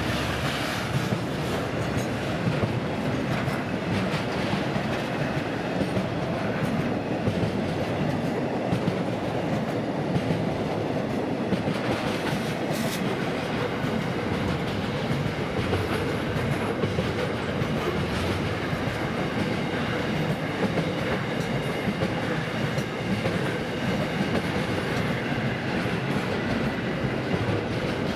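Container flat wagons of a long freight train rolling past, steel wheels running steadily over the rails as the train gets under way after waiting in a crossing loop.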